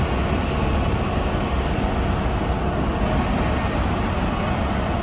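Heavy diesel construction machinery running steadily, a constant low engine rumble with no pauses.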